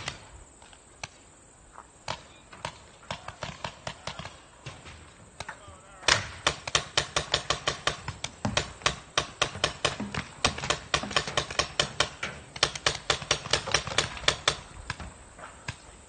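Paintball markers firing: scattered shots at first, then about six seconds in a rapid, even string of pops, roughly six a second, that breaks off near the end.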